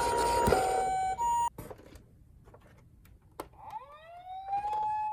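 Toy ambulance miniature cars' electronic sirens: a two-tone hi-lo siren over a rattling noise, cut off about a second and a half in. After a quiet stretch with a single click, a wail siren starts near the end, rising in pitch and then holding steady.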